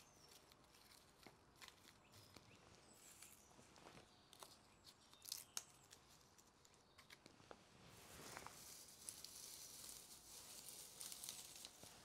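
Faint rustling and crackling of dry grass, ivy and moss being handled, with scattered small clicks; the rustling grows louder about eight seconds in.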